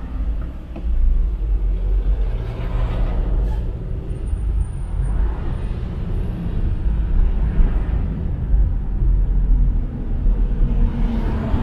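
A car's engine and tyre noise heard from inside its cabin, a steady low rumble that grows louder about a second in as the car pulls away and drives along a city street.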